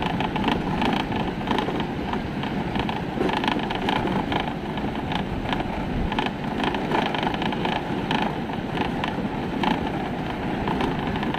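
Motorcycle riding slowly down a steep, ridged concrete road, its engine running low under wind buffeting the microphone, with many small knocks from the rough surface.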